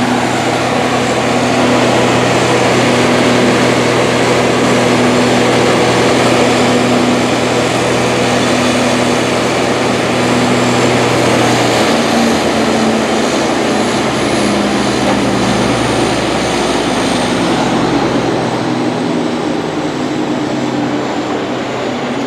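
A large engine running steadily. About halfway through its pitch drops in steps, and a thin high whine slowly falls in pitch toward the end.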